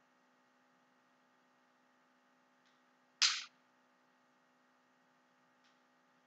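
Steady low electrical hum of a quiet room, with one brief, sharp noise about three seconds in and two faint ticks around it.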